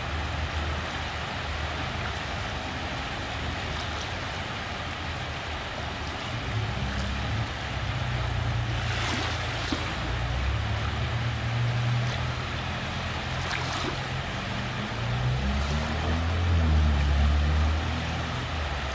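Steady rushing of the fast-flowing flooded river, under a low rumble that rises and falls and is loudest near the end.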